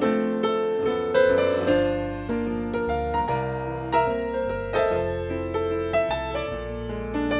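Instrumental interlude of a slow, tender hymn-like song on piano or keyboard, with chords and a low bass line under a melody.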